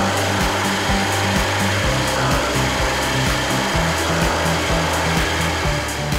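Hollow-chisel mortiser boring a mortise into a round wooden chair leg: a steady grinding rush of the motor and the chisel-and-auger bit cutting through wood. Background music plays underneath.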